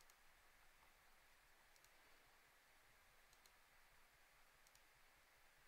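Near silence: room tone with a few faint computer mouse clicks, spread a second or so apart.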